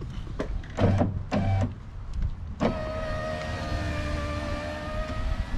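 Newly installed replacement power window motor in a 2003 Toyota Highlander's passenger front door, test-run: after a few short knocks, the motor starts about two and a half seconds in and runs the window regulator with a steady whine for about three seconds, moving freely where the old motor barely moved.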